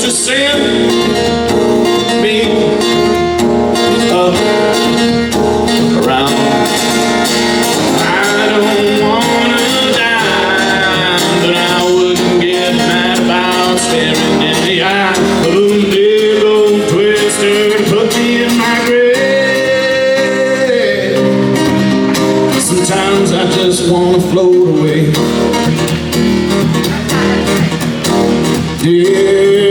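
Live band music with guitar, a gliding melodic line carried over steady held chords.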